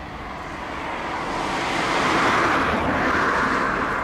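Transall C-160D's two Rolls-Royce Tyne turboprop engines droning on landing approach, growing louder as the aircraft comes closer, loudest about two seconds in, with a slowly shifting, phasing tone.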